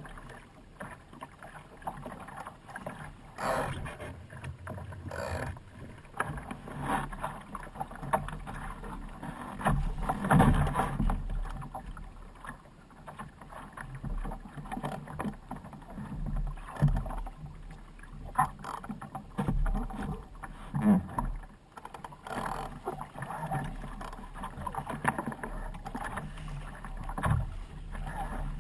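Water splashing and slapping against the hull of a Laser sailing dinghy under way, coming in irregular surges, some sharper than others.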